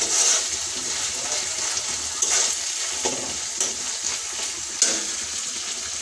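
Chopped onions frying in hot oil in a steel kadai, with a steady sizzle. A metal spatula scrapes and taps against the pan as it stirs, a handful of times, with the sharpest tap about five seconds in.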